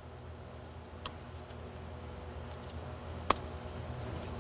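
Two sharp snips about two seconds apart, the second louder: cutters cutting through plastic factory zip ties on a wire harness. A steady low hum runs underneath.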